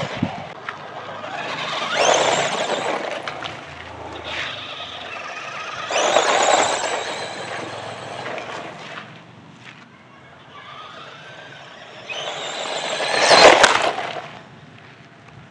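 Tygatec Supersonic RC car's electric motor whining and its tyres scrabbling on gravelly dirt as it accelerates, surging several times and loudest near the end as it comes close.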